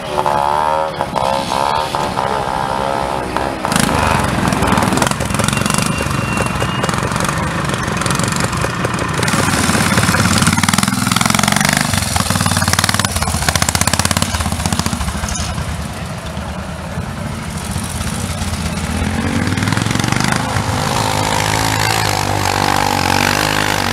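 Trials motorcycle engines revving on a steep dirt climb, the engine note rising and falling as the throttle is opened and eased, with more than one bike heard in turn.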